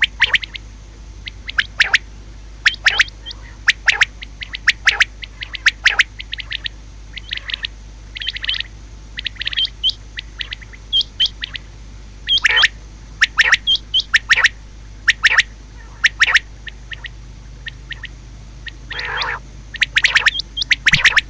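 Common quail calling over and over: short, sharp notes, mostly in quick pairs and triplets, with a faint steady hum underneath.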